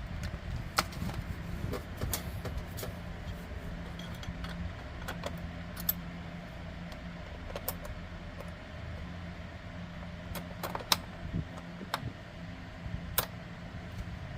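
Small metal clicks and clinks at irregular intervals as the parts of a safe's combination lock are handled, over a steady low hum.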